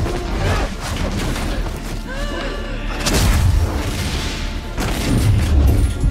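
Fight-scene sound effects over dramatic music: a short cry of effort about two seconds in, then a sharp impact with a deep boom about three seconds in, and more deep booms near the end.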